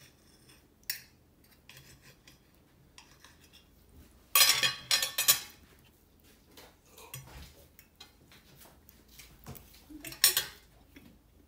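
Fork and knife clinking and scraping against a plate while cutting a crepe, with scattered light clicks and a cluster of louder scrapes a little over four seconds in and another near the end.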